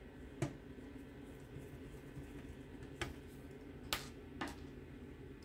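A few faint, sharp clicks as a wire connector is seated on a CRT monitor's circuit board by hand, four in all, the loudest about four seconds in, over a steady low background hum.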